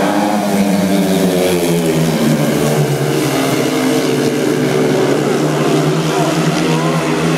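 Two speedway motorcycles, 500cc single-cylinder racing engines, running hard round the bend and down the straight, their engine pitch wavering up and down as the riders work the throttle.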